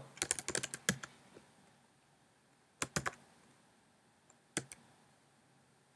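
Typing on a computer keyboard: a quick run of keystrokes in the first second and a half, then a few more isolated clicks a couple of seconds later.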